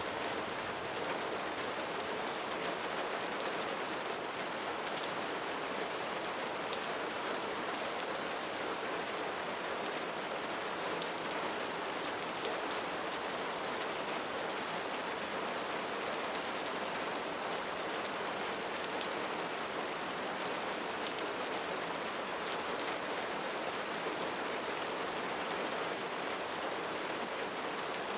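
Steady rain falling on leaves, an even wash of noise with the faint ticks of individual drops and no change in strength.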